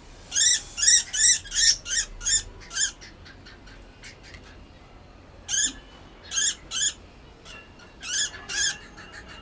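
Lovebird giving short, harsh, high-pitched squawks, about three a second, in three runs with pauses between them, the distress calls of a bird held in the hand for a DNA sample.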